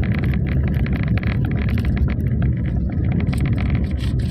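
Steady low rumble with many quick, small clicks and taps over it.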